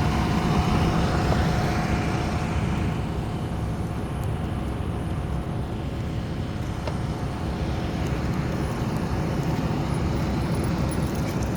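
Steady engine and road noise from a truck on the move.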